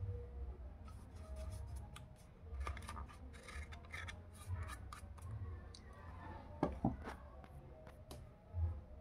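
Handling noise from recording gear being set up: a scatter of small clicks and rubbing over a low hum, with two sharper clicks about two-thirds of the way through.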